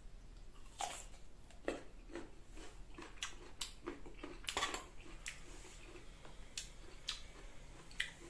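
Close-up eating sounds of crisp unripe green mango slices topped with bagoong shrimp paste: sharp crunching bites and wet chewing clicks at irregular intervals, with light clinks of a metal spoon.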